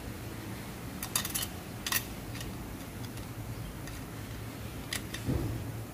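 Light metallic clicks and clinks of steel clutch plates and friction discs being handled in a Mazda 3 automatic transmission's forward clutch drum: a quick cluster about a second in, another click near two seconds, and two more near five seconds, over a steady low hum.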